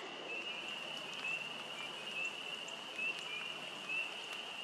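Steady high-pitched chorus of animal calls, with short rising peeps standing out every half second to a second.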